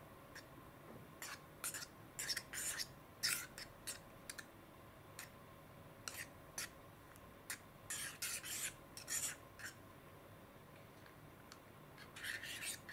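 Plastic spork scraping and stirring against the inside of a soup bowl: short rasping strokes in clusters, with pauses between them.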